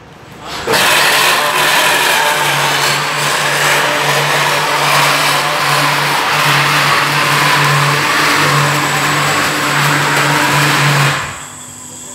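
POP ceiling strip roll-forming machine running, with galvanised steel strip passing through its knurling roller and forming rolls: a loud, steady mechanical rattle over a low electric-motor hum. It starts about a second in and stops shortly before the end.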